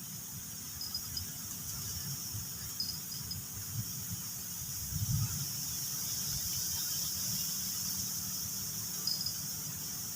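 Strong wind buffeting the microphone in uneven gusts, the strongest about five seconds in, over a steady high drone of insects with a few short chirps.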